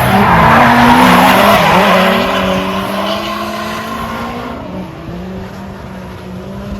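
Drift car sliding with its tires squealing and its engine revving up and down. It is loudest in the first two seconds, then fades away.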